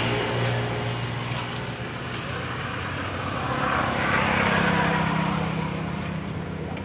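Motor vehicles passing on a road: a steady low engine hum, with one passing vehicle swelling louder and fading about four to five seconds in.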